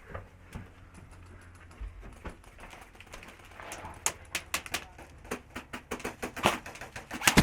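Airsoft guns firing: quick, sharp cracks at an irregular pace, starting about four seconds in and coming thicker toward the end.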